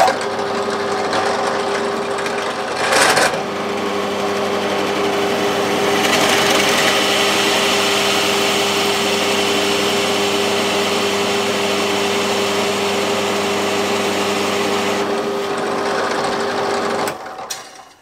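Parkside bench drill press running a Forstner bit, boring a hinge cup hole into a cabinet front. The motor starts abruptly with a steady hum, the bit cuts into the board with a louder rasping noise from about six to fifteen seconds in, and the motor winds down near the end.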